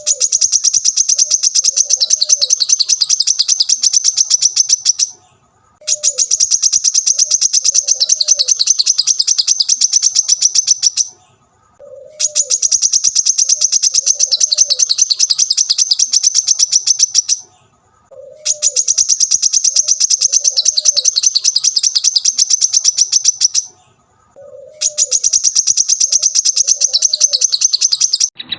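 Looped masteran (songbird training) recording of bird calls: a bird's rapid, high chirping, many notes a second, in stretches of about five seconds broken by short pauses, with a pair of low coos near the start of each stretch. The same cycle repeats about every six seconds.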